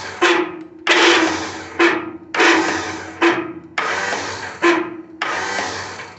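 A Craftsman garden tractor's electric starter motor whirring as the key is held, surging and dropping about every second and a half, then stopping. The starter engages but does not crank the engine into life; the owner says it is dirty and not wanting to kick up.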